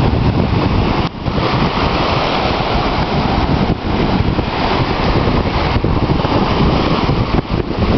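Ocean surf breaking and washing in the shallows, with heavy wind rumble on the microphone.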